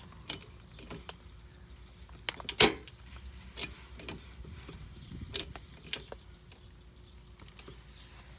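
Scattered light metallic clicks and clinks at an uneven pace, with one sharp knock about two and a half seconds in, from a jack being worked to raise a mobile home pier.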